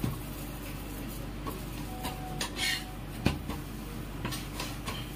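Dishes and cutlery clinking: a few separate sharp clinks, one ringing briefly about two seconds in, the loudest just after three seconds.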